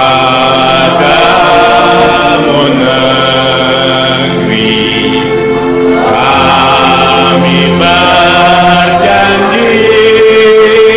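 A choir singing a slow song in long held notes, the voices moving together from one sustained note to the next every second or two.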